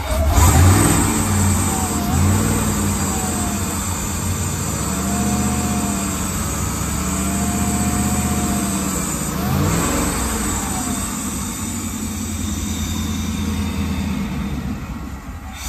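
Cammed LS V8 marine engine running unevenly, its revs rising and falling several times with throttle blips, then sagging near the end. It is untuned and keeps wanting to stall out.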